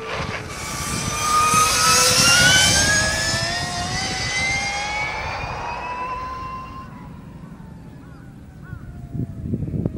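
Mugen Shinden Roku electric racing motorcycle's motor whining as it accelerates out of a corner, its pitch rising steadily. It is loudest as it passes about two seconds in, then fades as the bike rides away.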